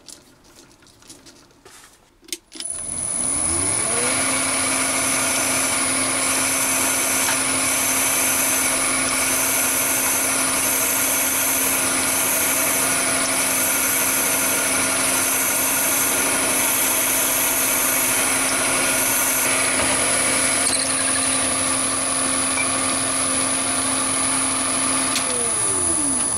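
Chinese mini lathe motor starting up after a few faint handling clicks, running steadily with a high whine while a multi-purpose carbide-tipped drill bores into the spinning marble sphere, then winding down near the end.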